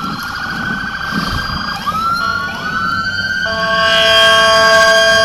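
Emergency vehicle siren wailing, its pitch rising in repeated sweeps. About three and a half seconds in, a louder steady blaring tone with several pitches takes over.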